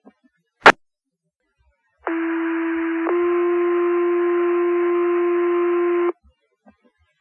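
Two-tone sequential fire paging alert over the dispatch radio: one steady tone for about a second, then a slightly higher tone held for about three seconds. This is the signal that sets off the firefighters' pagers. A sharp radio click comes before it and another at the end.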